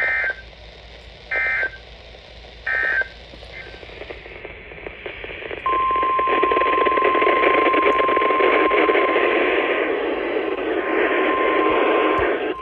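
Three short bursts of warbling digital data tones, the EAS end-of-message code sent three times. Radio hiss then builds, and about six seconds in a steady single tone starts and holds for about six seconds: the NOAA Weather Radio 1050 Hz alert tone over static.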